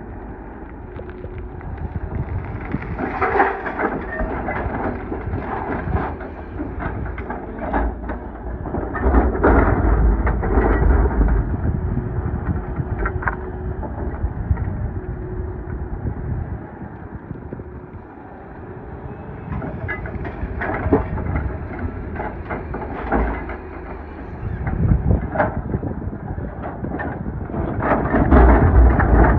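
Doosan DX420LCA excavator running, heard from inside its cab: a steady diesel engine rumble with hydraulic load. Four times, rough bursts of gravel scraping and pouring rise over it as the bucket digs and dumps.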